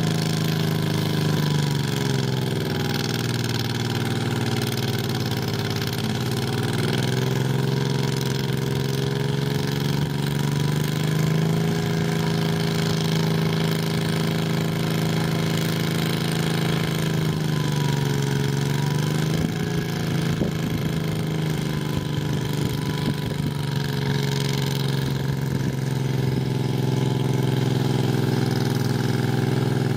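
Garden tractor engine running hard under load while pulling a weight sled. Its pitch sags about two seconds in, recovers, then dips twice more later as the engine bogs and picks up.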